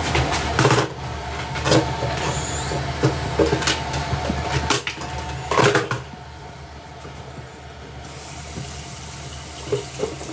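Water running into a sink, with a steady hum and several sharp knocks and clatters in the first six seconds. After that the running water turns quieter and hissier.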